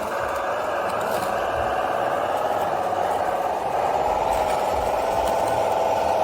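Steady whine of a radio-controlled construction machine's small electric motor running under load, wavering slightly in pitch and getting a little louder near the middle.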